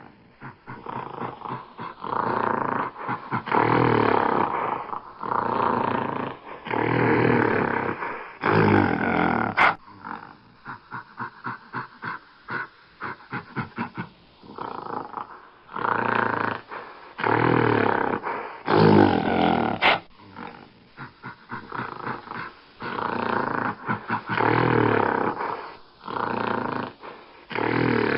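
Gorilla giving deep, roaring growls in repeated calls about a second long, with a quick run of short pulses about ten to fifteen seconds in.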